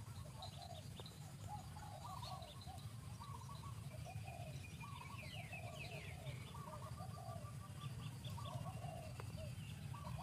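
Birds calling in short, repeated chirping notes, with a run of quick falling chirps about halfway through, over a steady low hum.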